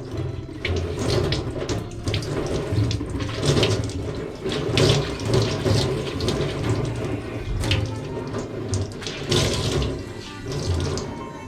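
Tap running into a sink while a cloth rag and a handkerchief are rinsed under it, with uneven splashing.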